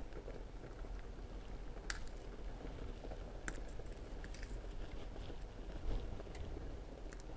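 A stock cube's wrapper being unwrapped by hand: scattered small crinkles and crackles, over a low steady hum.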